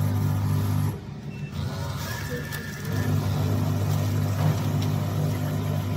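Small vertical powder sachet packing machine running with a steady low mechanical hum. The hum drops away for about two seconds about a second in, then resumes.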